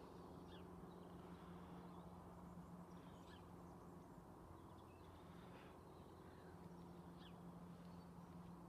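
Near silence outdoors: a few faint, short bird chirps scattered over a steady low hum.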